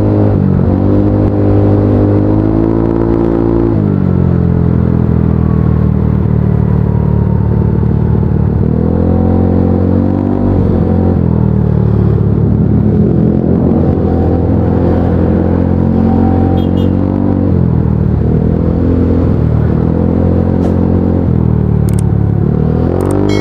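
Motorcycle engine heard from the rider's seat, running at low speed and repeatedly revving up and easing off as the bike creeps through stop-and-go traffic.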